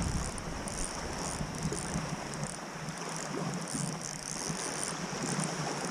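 Small waves lapping at the shoreline, with wind buffeting the microphone, strongest in the first second or so.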